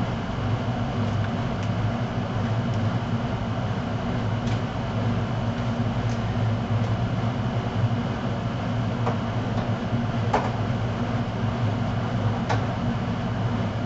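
Steady low hum of an electric motor running, like a fan or blower, with a few faint clicks and taps over it.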